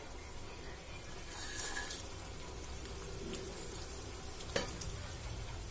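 Oil sizzling gently in an iron kadai as peanuts fry and coriander seeds, cumin seeds and garlic cloves are tipped in, with a few light clicks.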